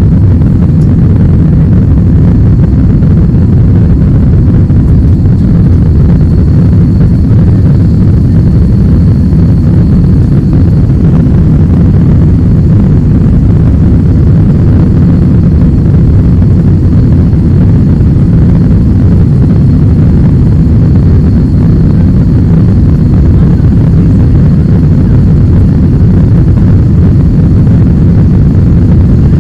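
Jet airliner cabin noise by a window over the wing: a loud, steady rumble of engines and rushing air, with a faint high whine above it.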